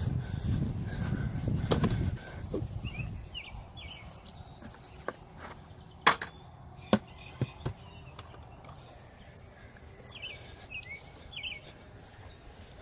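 Outdoor farmyard sound: a low rumble of wind or handling noise for the first two seconds, then short bird chirps twice, about three seconds in and again near the end. In the middle come a few sharp clicks or knocks, the loudest about six seconds in.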